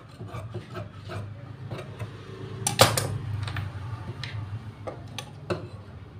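Tailor's shears snipping and clicking through cotton dress fabric on a table, with light handling of the cloth and one louder clack about three seconds in, over a low steady hum.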